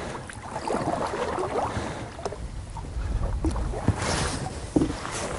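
Small inflatable rowboat being rowed: oars dipping and splashing in the water, with a few light knocks from the oars and boat, and a brief splash about four seconds in.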